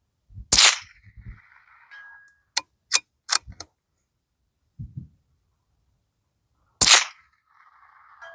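Two suppressed .22 LR rifle shots about six seconds apart, each a sharp crack followed by a brief ring. Between them, three light metallic clicks.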